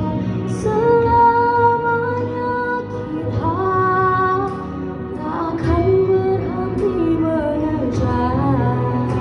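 A female voice singing a slow melody with long held notes, some with vibrato, over musical accompaniment.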